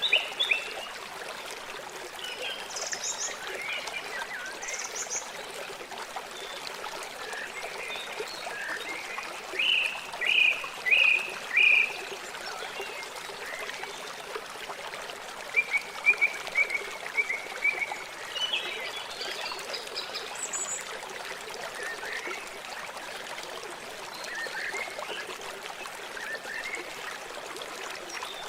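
River water flowing with a steady rushing sound. Short high-pitched animal calls come in quick runs of three or four notes several times.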